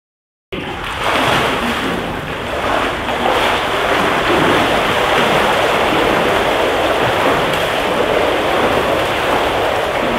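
Swimmers splashing in an indoor pool, a steady wash of water noise that starts abruptly about half a second in.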